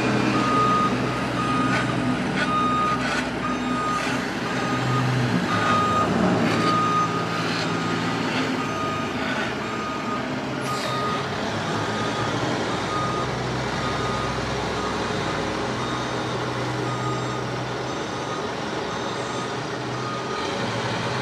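Backup alarm of a heavy construction vehicle beeping in a steady repeating pattern over a diesel engine's low rumble, with scattered knocks and clanks from road work.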